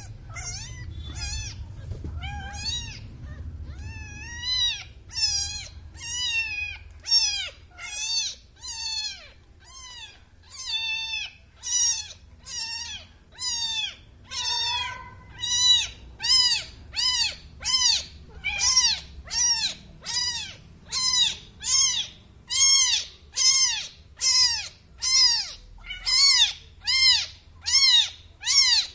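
Newborn kitten mewing over and over, a little more than once a second. The calls are high-pitched and each one rises then falls in pitch. The mews become louder and more regular after the first few seconds.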